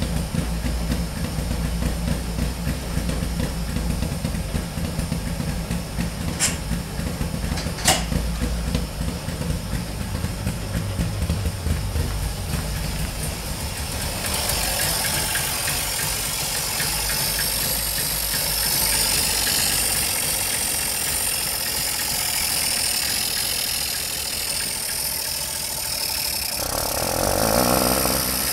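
A 1974 Syrena 105's three-cylinder two-stroke engine idling on its first run after several years of standing. It runs steadily with a low, pulsing beat, with two sharp clicks between 6 and 8 seconds in. From about halfway it is heard up close in the engine bay, with more hiss.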